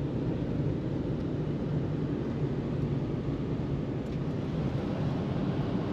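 Four-wheel-drive pickup truck driving slowly on packed snow and ice: a steady low engine and road drone.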